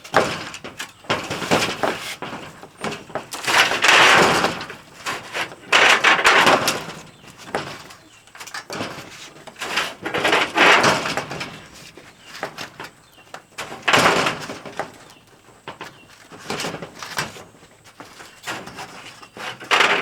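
Porch roof panels being worked loose and slid off, scraping against each other in repeated bursts about a second long, with knocks and clatter between; the overlapping laps are sealed together and resist.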